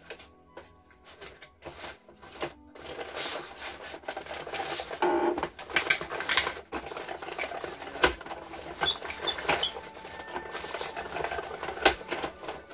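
Hand-cranked Cuttlebug die-cutting and embossing machine turning, rolling a die-and-plate stack with sanding cloth through its rollers under pressure: a steady clattering with many sharp clicks and a few louder snaps.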